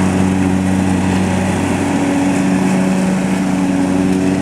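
Lawn mower engine running steadily at an even pitch while its all-weather mulching blade chops up leaves.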